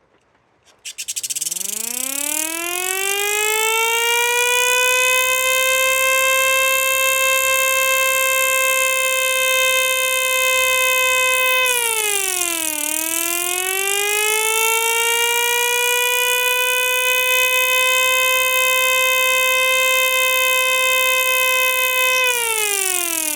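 Home-made air-raid siren winding up from a low growl to a steady wail over a rushing hiss, starting about a second in. About halfway through the pitch sags and then winds back up to the same wail, and near the end it starts to wind down.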